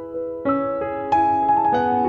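Background piano music: sustained single notes played one after another, a new note starting about every half second.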